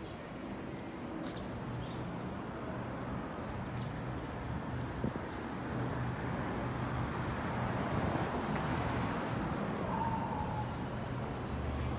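City street ambience: a steady hum of traffic and street noise that swells in the middle, as if a vehicle is passing, then eases, with a few faint clicks and a brief high tone near the end.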